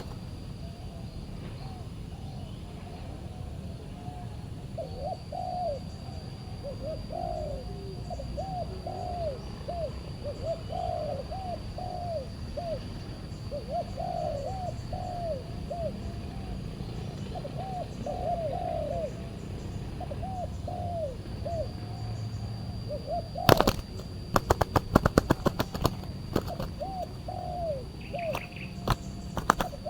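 Spotted doves cooing over and over, their calls overlapping, with a faint steady high whine behind them. About 23 seconds in, a quick run of sharp clatters.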